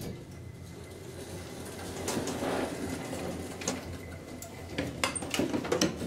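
A 1943 Titan elevator: a low steady machine hum, then from about three and a half seconds in a run of clicks and knocks from its doors being worked, thickest near the end.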